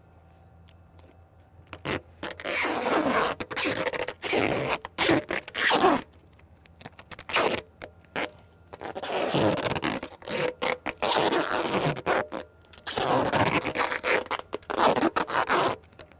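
Duct tape pulled off the roll in long ripping strips, over and over with short pauses, as it is wrapped around a timing disc on an aircraft propeller spinner.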